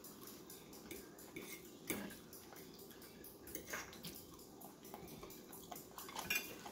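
Metal fork scraping and clinking against a ceramic plate of food, with a few sharp clicks spread through, along with chewing.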